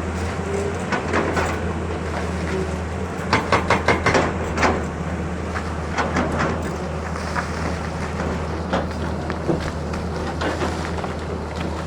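Excavator's diesel engine running steadily, with a quick run of about six sharp metallic knocks about three seconds in and a few single clanks after.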